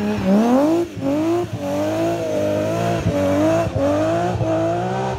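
BMW E36 rally car's engine at full throttle as it pulls away. The revs climb and drop sharply at upshifts about a second in and again at about a second and a half, then hold high with brief dips as it drives off.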